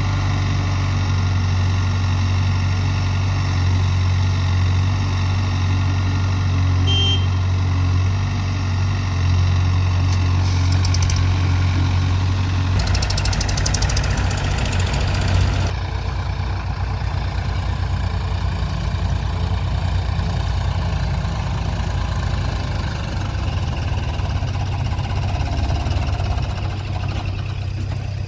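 Heavy diesel engine running steadily with a low drone, with a few seconds of added hiss about halfway through.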